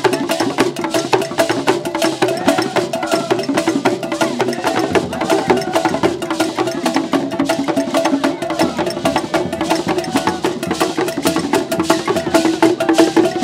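Traditional Ghanaian drumming ensemble: several wooden hand drums with skin heads beaten by hand in a fast, dense rhythm of sharp strokes.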